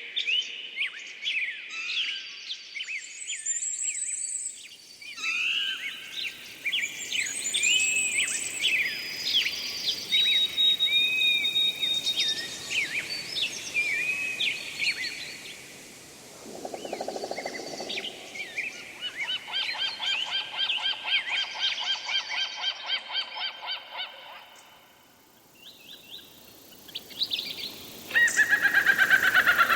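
Many songbirds chirping and whistling, with overlapping short calls and pitch glides. A fast, evenly repeated trill runs for several seconds in the second half. Near the end come louder, falling calls.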